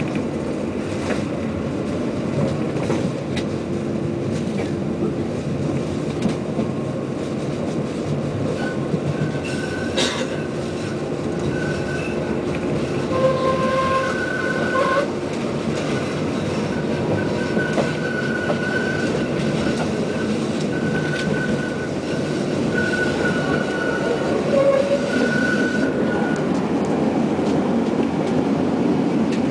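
Konstal 105Na tram running, heard from inside the car: a steady rumble of wheels on rails. From about nine seconds in until a few seconds before the end, thin high squeals of the wheels come and go, and there is one sharp click about ten seconds in.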